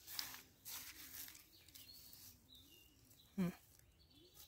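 Quiet outdoor ambience: soft rustling as a nylon cast net is picked through by hand for small fish, with a few faint bird chirps and one brief, louder low sound about three and a half seconds in.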